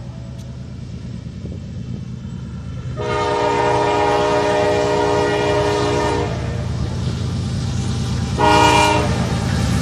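Locomotive horn, pitched down, sounding a chord of several notes over the low rumble of a train. It blows one long blast about three seconds in, lasting about three seconds, then a short blast near the end.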